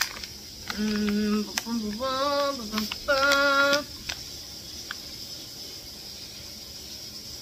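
A woman's voice singing or humming three held notes in a short idle tune, lasting about three seconds, then only faint clicks over a low hiss.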